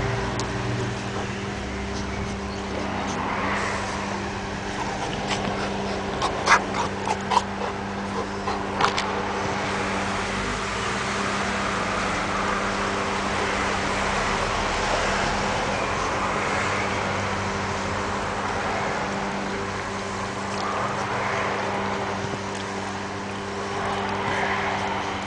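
Rottweiler play-biting and mouthing a person's hand, with soft breathy dog noises over a steady low hum. A quick run of sharp clicks comes about six to nine seconds in.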